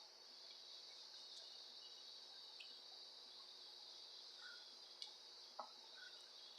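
Near silence: a faint, steady high-pitched hiss, with two faint clicks about five seconds in.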